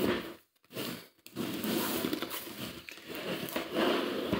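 A cardboard speaker box being handled and turned over on a table: rustling and rubbing of the packaging, briefly at the start and then again from about a second in.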